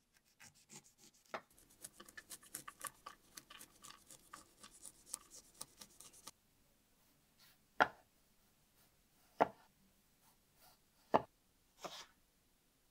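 Kitchen knife chopping quickly on a cutting board, about five strokes a second, for roughly six seconds. Four single, heavier knocks follow, a second or two apart.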